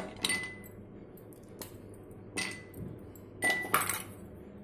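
Ice cubes dropped into glass tumblers, clinking against the glass about five times, some strikes followed by a brief ringing of the glass.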